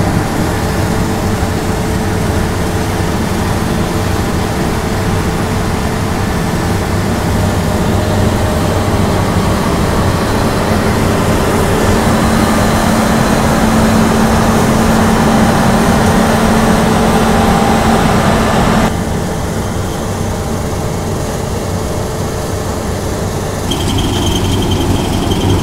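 New Holland CR combine harvester with a MacDon header running while harvesting beans: a steady engine and threshing drone with a low hum. The level drops about three-quarters of the way through and rises again near the end.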